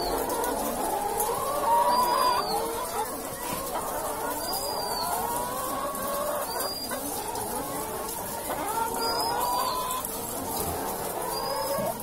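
A shed full of caged brown laying hens clucking and calling at once, many voices overlapping. A short high chirp cuts through about every two seconds.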